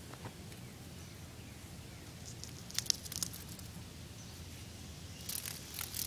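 Scratchy handling noise and a few sharp clicks as a cicada on a stick is set into a mesh cage, then short rasping buzzes near the end from the agitated male cicada, which sounds really mad.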